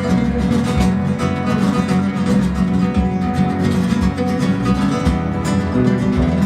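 Live flamenco music on acoustic guitars, with quick strumming and plucked notes in a steady, unbroken rhythm.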